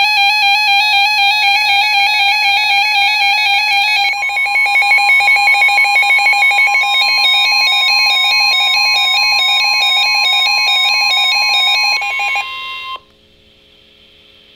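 Electronic emergency alert tones. First comes a loud, fast-warbling tone pattern. About four seconds in, a steady single alert tone joins it, and the tone cuts off abruptly about thirteen seconds in, leaving a faint hiss.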